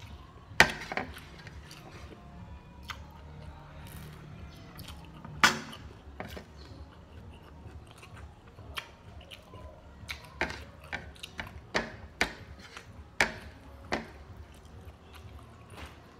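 A person eating with their hands, close to the microphone: chewing and mouth sounds broken by short sharp clicks. There is a loud click about half a second in and another about five and a half seconds in, then a quick run of them between about ten and fourteen seconds.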